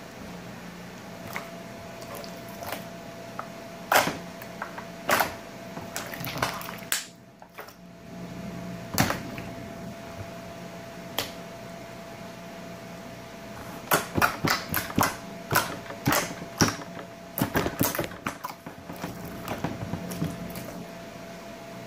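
Slime being stretched, folded and pressed by hand, giving sharp pops and clicks as trapped air bursts out: scattered single pops at first, then a quick run of them a little past the middle.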